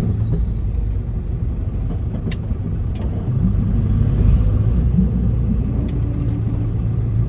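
Car engine and road noise heard from inside the cabin: a steady low rumble, with a couple of light clicks about two and three seconds in.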